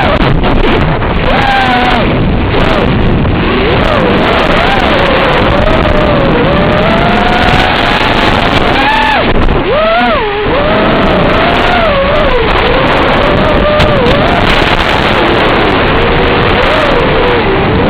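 QAV-R220 racing quadcopter's brushless motors and propellers whining in flight, the pitch rising and falling with the throttle, over a steady rushing noise. About halfway through the whine drops sharply, then climbs back.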